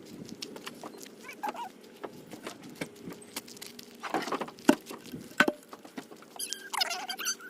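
Rummaging and moving about in a cluttered storage pile: scattered knocks, clicks and rustling, with a few short squeaks.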